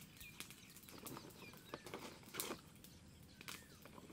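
Faint, short bird chirps, several over a few seconds, with scattered clicks and knocks, the loudest of them about halfway through.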